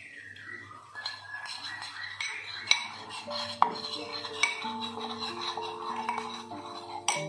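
Metal spoon stirring a sauce in a ceramic bowl, scraping and clinking against the sides with several sharp taps. Background music with held notes comes in about three seconds in.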